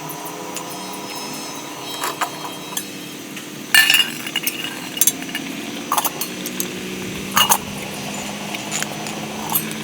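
Sharp metallic clinks and knocks, about five ringing strikes with the loudest about four seconds in, over a steady low hum.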